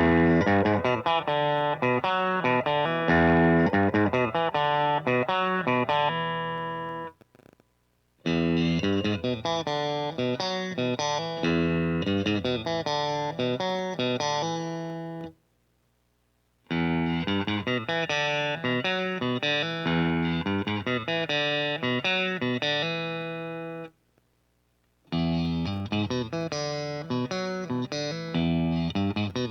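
Ibanez S670QM electric guitar played with a clean tone through a Deluxe Reverb amp patch, miked in front of the amp. It plays four picked phrases of about seven seconds each, with short pauses between them, and each phrase fades as it rings out.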